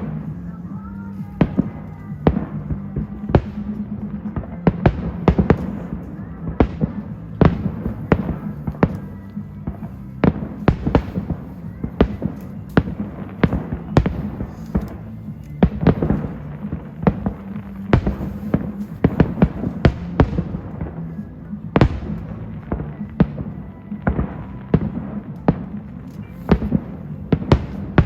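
Aerial fireworks bursting in quick, irregular succession: many sharp bangs, several a second at times, over a steady low hum.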